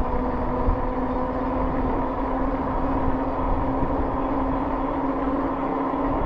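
Rad Rover e-bike's 26 x 4 inch fat tires humming steadily on the pavement at about 13 to 14 mph, over low wind rumble on the microphone.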